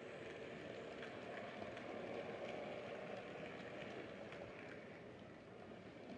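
OO-gauge Hornby Terrier model locomotive and its open wagons running past on the track: a steady rattling rumble of small wheels on the rails with a few faint clicks. Loudest about two seconds in, easing off a little toward the end as the train goes by.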